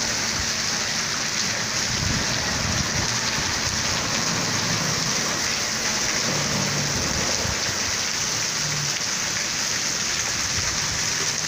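Heavy rain pouring down steadily: a dense, even hiss.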